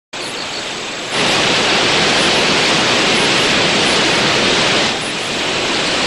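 A waterfall rushing: a steady noise of falling water that grows louder about a second in and eases a little near the end.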